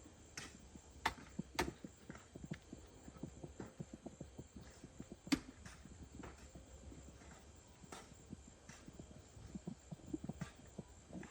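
Faint, irregular knocking and tapping, with a few sharper clicks about a second, a second and a half, and five seconds in.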